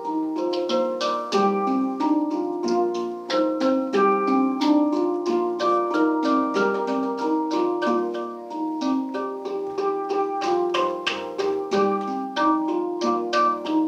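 Two Hang drums (steel handpans) played together by hand as a duet, many tuned notes struck in quick succession and ringing on over each other.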